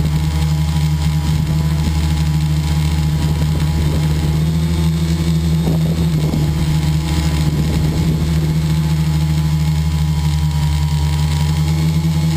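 The engine of a radio-controlled model airplane, heard from a camera on board, running steadily at one pitch in cruising flight.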